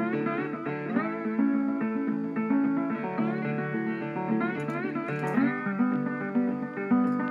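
Background music: a plucked guitar melody, with notes that slide up in pitch.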